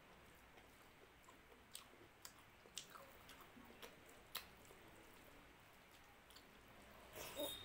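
Faint wet squishing and scattered soft clicks of fingers mixing rice with dal on a plate, along with chewing. A louder wet smack comes near the end.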